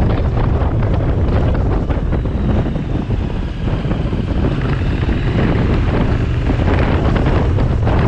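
Triumph 900cc parallel-twin motorcycle being ridden, its engine running under loud, steady wind buffeting on the microphone.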